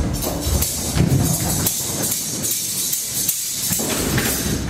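A loud, hissy wash of jingling percussion, like shakers and tambourine, as a music track begins.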